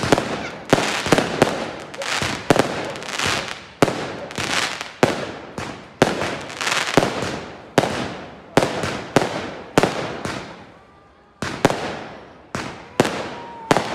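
Fireworks display: aerial shells bursting one after another, sharp bangs about one to two a second, each trailing off before the next. About ten seconds in there is a gap of a second or so before the bangs start again.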